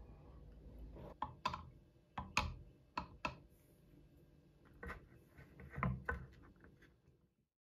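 Irregular light clicks and taps from small guitar parts and tools being handled on a workbench, about eight sharp ones, over a faint hum. The sound cuts off near the end.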